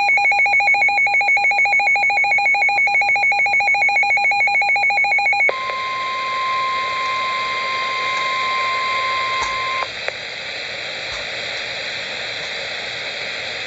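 A rapidly pulsing electronic alert beep, about seven beeps a second, gives way at about five and a half seconds to the steady NOAA Weather Radio warning alarm tone. That tone holds for about four seconds, then cuts off and leaves radio hiss.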